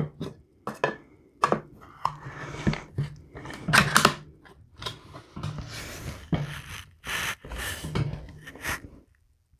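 Handling noise from a rifle's polymer Magpul Hunter stock being gripped, lifted and shouldered: a scatter of short rubs, clicks and knocks of hands and plastic. It stops abruptly about nine seconds in.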